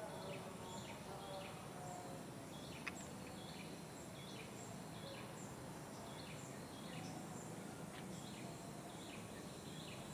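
Quiet tropical forest ambience: short chirping animal calls repeating about two a second over a faint steady high whine. A single sharp click comes about three seconds in.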